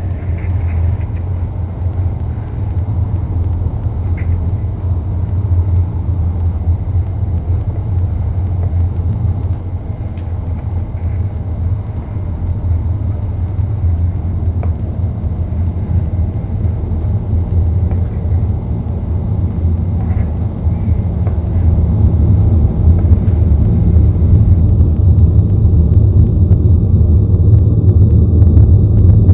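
A low, steady rumbling drone that grows louder over the last several seconds.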